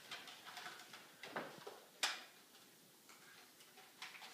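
A few sharp clicks and knocks, the loudest about two seconds in, with fainter ticks near the end.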